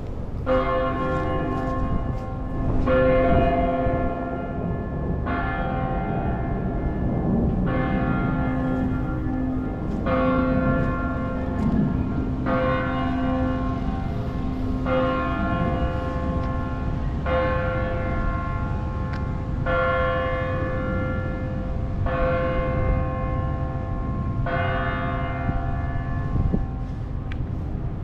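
A single large bell tolling, struck about every two and a half seconds at the same pitch, eleven strikes, each ringing on into the next.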